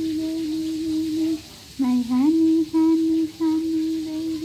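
Background music: a voice humming a slow tune in long held notes. Each phrase opens with a dip in pitch and a rise back, with short breaks between phrases.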